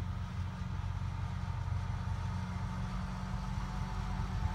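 Engine of a restored Farmall M tractor running steadily, a low, even drone as the tractor approaches.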